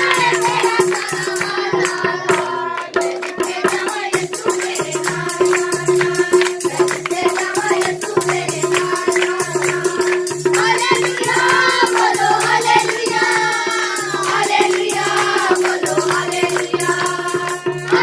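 Background music: a song with a singing voice over a steady held drone note and a fast, even rattling percussion beat.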